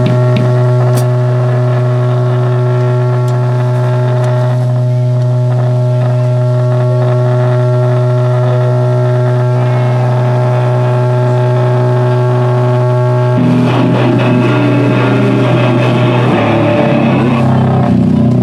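Loud amplified drone from the band's guitar rig, held steady on one pitch with no decay. About thirteen seconds in it breaks into the band playing, with the notes shifting.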